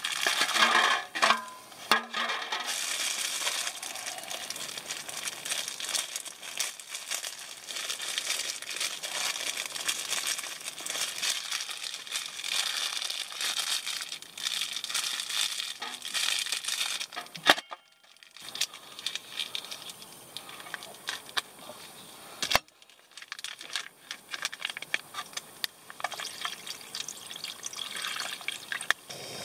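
Thin plastic packaging crinkling and rustling as udon noodles are worked out of their bag into an aluminium foil pan, with brief pauses in the handling. Near the end, liquid soup pours from a plastic pouch onto the noodles.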